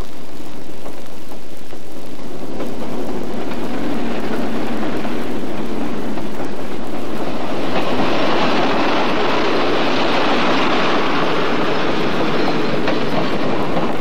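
Passenger train approaching and passing at speed, its rush of wheels on rails building steadily and at its loudest in the second half.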